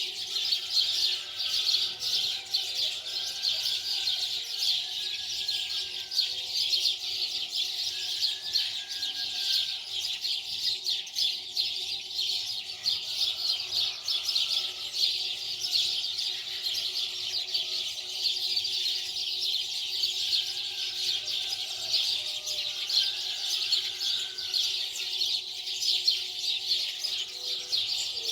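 Dense, unbroken chorus of many small birds chirping rapidly, with a few short whistled notes now and then.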